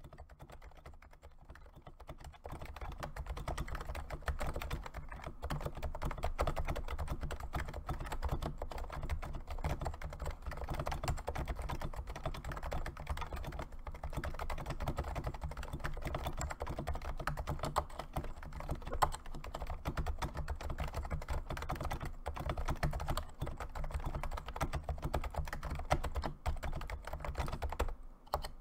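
Fast, continuous typing on a Realforce 104US keyboard with silenced 45 g Topre electrostatic-capacitive rubber-dome switches: a dense stream of soft, damped keystrokes. It starts lighter, fills out about two seconds in, and pauses briefly near the end.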